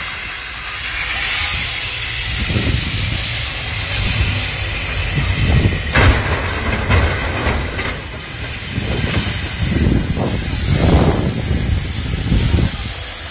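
Strong wind in a snow squall blowing over the microphone: a steady loud hiss with low rumbling gusts, and a single sharp knock about six seconds in.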